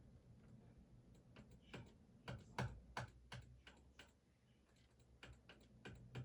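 Faint, irregular light clicks and taps, one to three a second, over a faint low hum.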